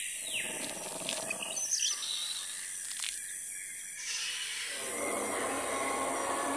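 Jungle ambience sound effects: short chirping bird calls over a steady hiss, then a fuller wash of noise about four seconds in.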